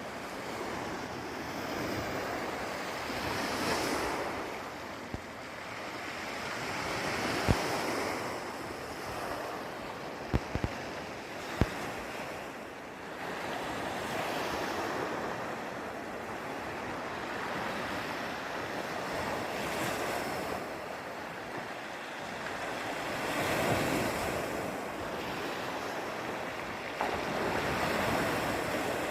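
Sea surf washing onto the shore, swelling and falling back every few seconds, with wind on the microphone and a few short thumps.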